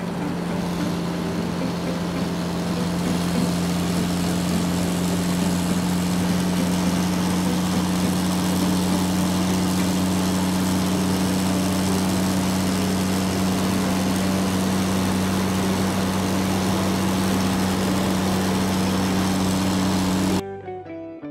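Truck engine sound effect: an engine running steadily with a low, even drone that cuts off suddenly about a second before the end.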